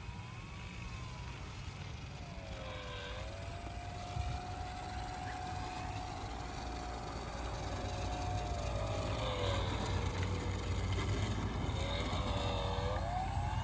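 F3A precision-aerobatic model airplane's motor and propeller whining as it taxis on the ground. The pitch dips about three seconds in, holds steady, sags again around the ten-second mark and climbs near the end as the throttle is worked.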